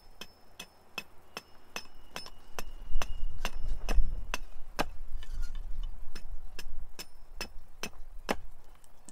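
Stihl AX6 600-gram forged-steel carving axe, unsharpened from the shop, chopping into a relatively dry cherry blank on a chopping block: quick, even chops, about three a second, heaviest three to four seconds in, stopping shortly before the end. The factory edge is too blunt to carve well.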